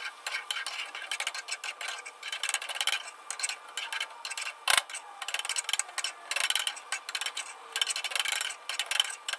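Spatula scraping and tapping against a cast iron skillet as eggs are folded into the vegetables, over a light sizzle of frying; one sharper knock about halfway through.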